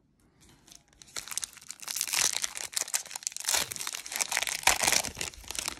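Foil wrapper of a 1993 Donruss baseball card pack crinkling as it is torn open, a dense crackle starting about a second in.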